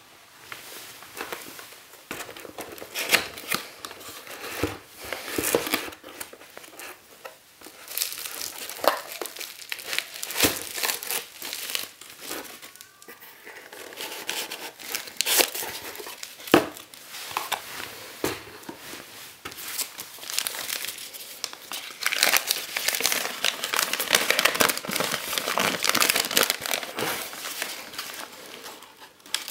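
Cardboard lens box, plastic bubble-wrap packaging and a paper instruction leaflet being handled during unboxing: irregular crinkling and rustling with sharp clicks and taps. Near the end the rustling grows louder and denser as the folded leaflet is opened out.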